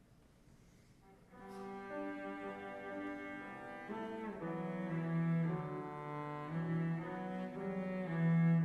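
Cello played with the bow, starting about a second and a half in: a melody of held notes that change every second or so, growing louder toward the end.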